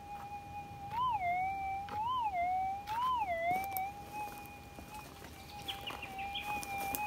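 Minelab GPX 6000 metal detector's steady threshold hum, with a Coiltek Goldhawk 10x5 coil, rising in pitch three times about a second apart as the coil passes over a very small target, each rise dipping briefly below the hum before settling back. A few light clicks near the end.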